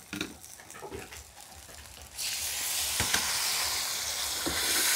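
Frying paste, sugar and salt in a hot wok, quiet for about two seconds apart from faint spatula clicks. Then a sudden loud sizzle as a dark liquid goes into the hot wok, holding steady, with a couple of light knocks of the spatula.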